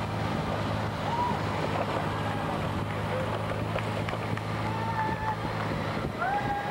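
Motorcycle engine running steadily at low speed, a constant low hum, under a steady hiss of tyres on a wet road and wind.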